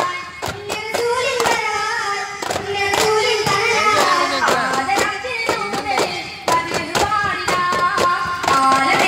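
Daff frame drums struck in a repeating rhythm under a melodic singing voice.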